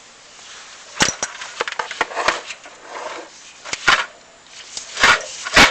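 Chimney inspection equipment knocking and scraping inside a flue: irregular sharp knocks with scraping between them, starting about a second in, the loudest knock near the end.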